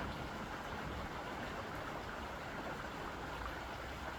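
Small stream flowing: a steady, even rush of running water.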